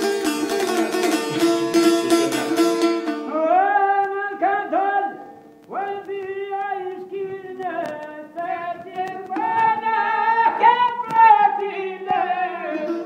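Folk music: a plucked string instrument plays a quick run of notes, then stops about three seconds in, and a solo voice sings long, bending phrases with short breaks, a few plucked notes between them.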